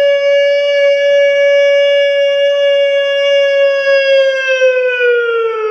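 Ramadan fast-breaking (buka puasa) siren holding one loud, steady tone, then starting to wind down with falling pitch near the end. It signals that the time to break the day's fast has come.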